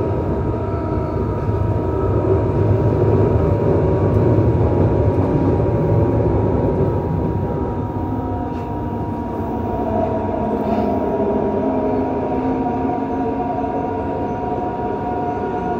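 Yokohama Municipal Subway 3000A train running, heard from inside the passenger car: a steady rumble of wheels on rail with a held whine from its Mitsubishi GTO-VVVF traction equipment. The whine's tones climb slightly about two-thirds of the way through.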